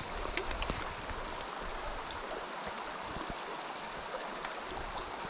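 A shallow, rocky stream riffle flowing, a steady rush of moving water, with a few faint sharp clicks in the first second.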